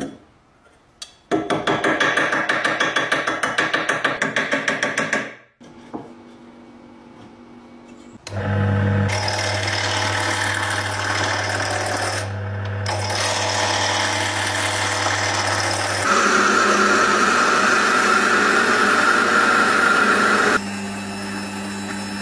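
A fast, evenly repeating mechanical tool noise for about four seconds, then a wood lathe motor humming steadily while a tool cuts the spinning wooden handle blank and a drill bit bores into its end. The cutting grows louder for a few seconds and drops back near the end.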